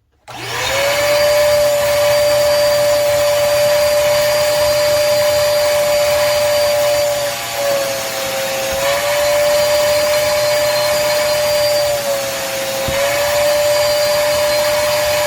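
Koblenz portable wet/dry shop vacuum switching on and running at full suction with a steady high motor whine, vacuuming a floor mat. Its pitch dips briefly twice, around eight and twelve seconds in.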